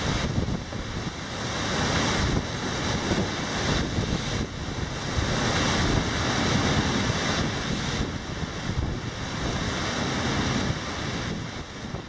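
Heavy storm surf crashing and churning against a sea wall in a continuous roar that swells and eases as each wave breaks, with strong wind buffeting the microphone.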